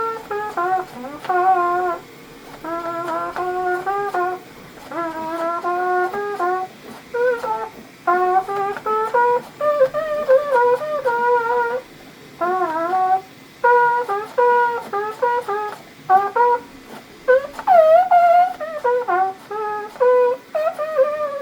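A 3D-printed rectangle trumpet, printed in PETG with a metal mouthpiece, playing a melody in short phrases with brief breath gaps between them. Some notes waver or bend in pitch, and the owner says the instrument's tuning is still not perfect.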